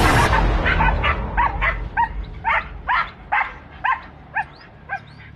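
Dog barking in a fast run of short, sharp barks, about two to three a second, at a wild boar during hunting-dog training. A loud rushing noise cuts off just after the start.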